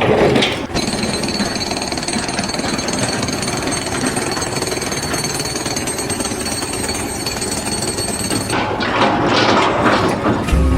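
Jackhammer hammering steadily and rapidly, with a thin high whine over it; the sound changes near the end.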